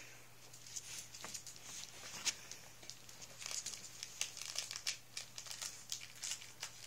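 Cairn terrier puppies scuffling on a fabric rug and chewing a soft toy: irregular crinkling and rustling with scattered small clicks, and one sharper click about two seconds in.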